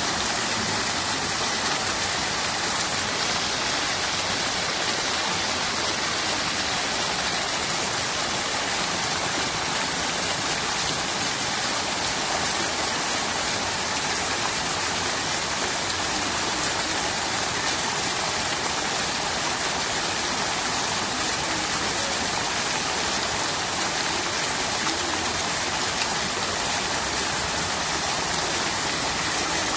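Fountain water splashing and trickling, a steady, unbroken rush.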